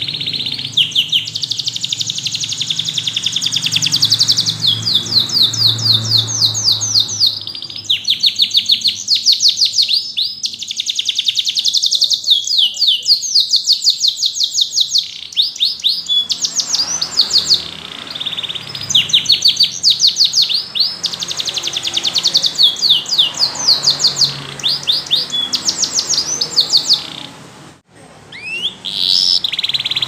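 Domestic canary singing: long rolls of fast, repeated high notes strung into trills, phrase after phrase with short pauses between, and a brief break near the end.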